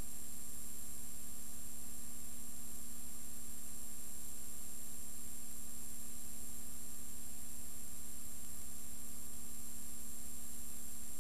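Steady electrical hum and hiss with no other sound: the noise floor of a silent film's transfer.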